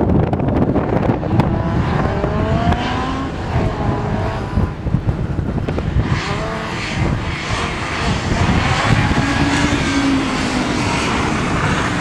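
A car engine being driven hard, its revs rising and falling several times as the car accelerates and slides through turns, over a constant low rumble.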